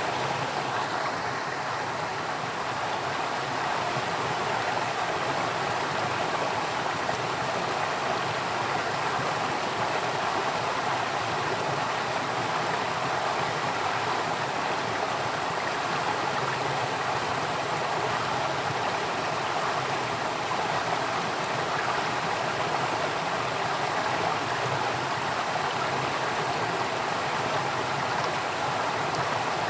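Flowing stream water running steadily, a constant rushing noise.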